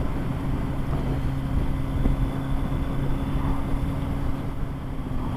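Kawasaki Z900 inline-four engine running at a steady cruising speed, a constant engine note over road rumble, with wind noise on the microphone.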